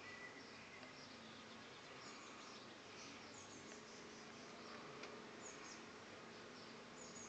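Near silence: faint outdoor ambience with scattered short, high-pitched chirps and a faint steady low hum.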